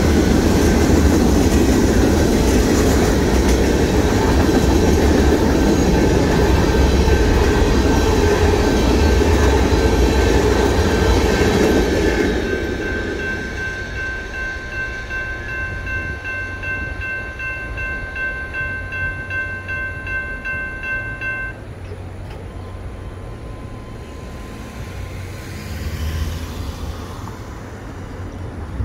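Freight train cars rolling past a railroad grade crossing, wheels rumbling and clacking on the rails, over the steady ringing of the crossing-signal bell. The train clears about twelve seconds in, leaving the bell ringing alone until it stops a little past twenty seconds; a car drives over the crossing near the end.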